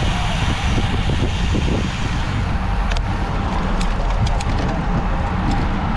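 Steady wind buffeting on a road bike's action-camera microphone at about 30 km/h, with a deep rumble from the road. A few light, sharp clicks come in the second half.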